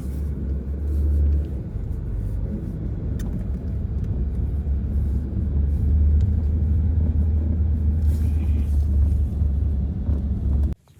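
Strong blizzard wind buffeting the microphone: a loud, deep, steady rumble that cuts off abruptly near the end.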